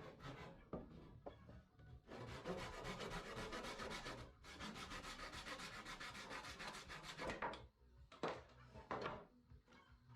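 Wood being sanded by hand with quick, even back-and-forth strokes: a few short strokes at first, a steady run of about five seconds starting two seconds in, then a few separate strokes near the end.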